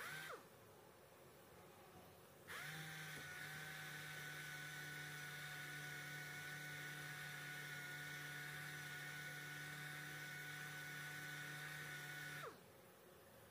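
Orbital sander sanding body filler, with a steady whine over a hiss. It winds down at the very start, spins back up about two and a half seconds in, runs evenly, and winds down again about a second before the end.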